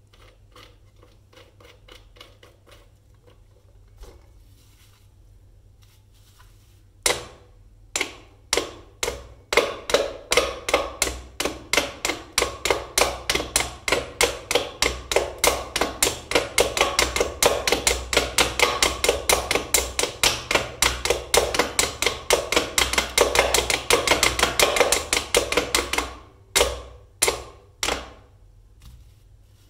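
Wooden toy mallets pounding the pegs of a wooden pound-a-peg bench, wood knocking on wood. A few single knocks come about seven seconds in, then fast knocking at about three to four strikes a second for some sixteen seconds, then a few last knocks near the end.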